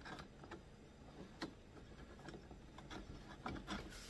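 Faint, scattered clicks and taps of small plastic and metal parts being handled as a carburetor is worked back into a Stihl handheld blower's housing.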